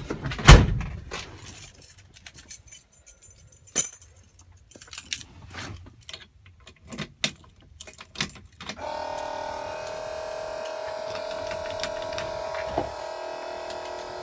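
Keys jangling and clicking at a truck's ignition, with a loud thump about half a second in. About nine seconds in, as the key is switched on, a steady electronic buzzing tone starts and holds unchanged. The tone is a dash warning buzzer of the ignition-on, engine-off state; the engine has not yet been cranked.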